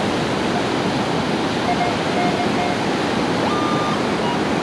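Steady rush of breaking surf. A metal detector sounds faintly over it: several short low beeps about two seconds in, then a longer, higher tone a little later.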